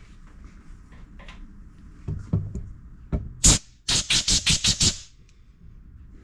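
Compressed-air blow gun blowing crud out of a Honda GCV160 carburettor: one sharp hissing blast about halfway through, then about seven quick puffs in a row. Light clicks of the carb being handled come before it.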